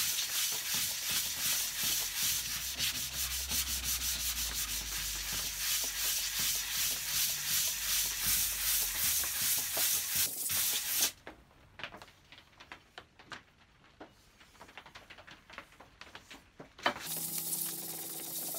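A Stanley No. 71 router plane's sole is rubbed back and forth on 400-grit abrasive paper, making a steady, scratchy sanding sound as the sole is flattened and small nicks are taken off. The rubbing stops about eleven seconds in, leaving only a few light taps. Background music comes in near the end.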